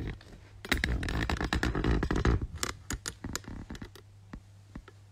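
Handling noise on the phone's microphone as the phone is picked up and repositioned: a burst of scraping and clattering about a second in, then scattered clicks and taps over a steady low hum.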